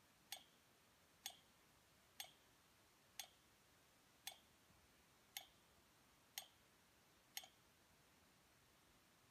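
Sheet counter's kicker unit firing, a sharp mechanical click about once a second, eight in all, stopping shortly before the end. Each click is the kicker marking off another batch of ten counted sheets.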